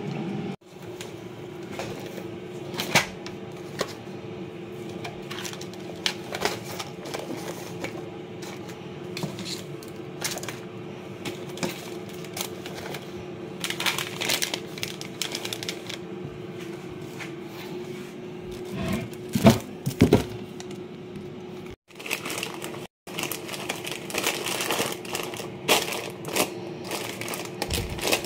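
Snack packets and wrappers being handled and packed into an insulated lunch bag: light crinkles, taps and clicks over a steady low hum, with a few louder knocks about two-thirds of the way through.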